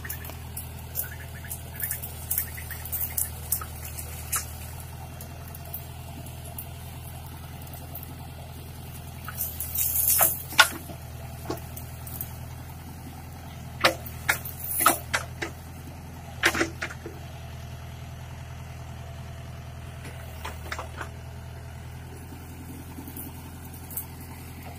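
Engine of a tractor-mounted backhoe loader running steadily, with scattered knocks and clanks from the machine working, the loudest about ten seconds in and again around fourteen to fifteen seconds in.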